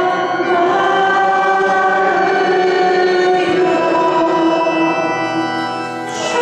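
Voices singing a hymn over long held chords, with a new chord starting near the end.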